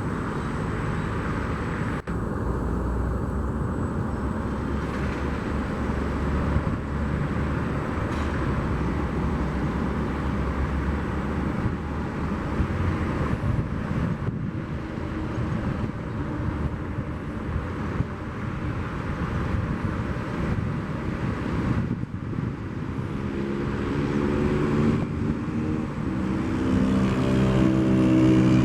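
Steady jet-engine rumble of an airliner at the airport. From about three-quarters of the way in, pitched engine tones come in and grow louder as the aircraft draws nearer.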